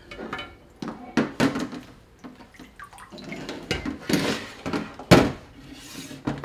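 Flexible gastroscope lifted out of a sink of disinfectant: water splashing and dripping off the insertion tube, with knocks as it is handled. A sharp knock just after five seconds in is the loudest sound.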